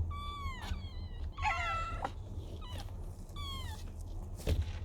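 Cat meowing repeatedly: about four short, high-pitched mews, each falling in pitch, with a sharp knock near the end.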